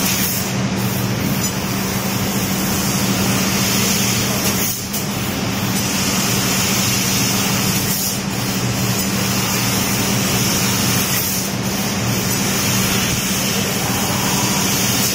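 Fiber laser cutting machine cutting sheet steel: a loud, steady hiss from the cut over a steady low hum, with three brief dips in the hiss.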